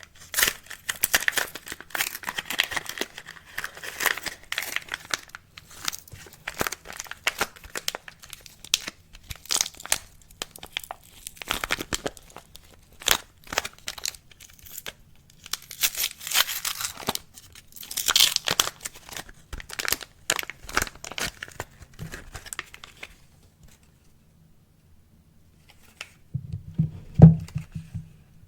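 Soap packaging being unwrapped close to the microphone: crinkling and tearing in dense bursts, a short lull, then a single thump near the end, the loudest moment.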